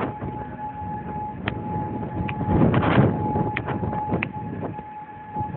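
Outdoor tornado warning siren sounding one steady pitch, its loudness swelling and fading. A rush of noise rises over it about two and a half seconds in.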